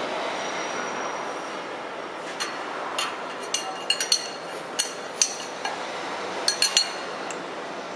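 Steel hand tools, a socket and an open-end wrench, clinking against the bolts and knife clamps of a plastic granulator's rotor during a knife change: a scatter of sharp, ringing metallic clinks, some in quick twos and threes, starting a couple of seconds in, over a steady background noise.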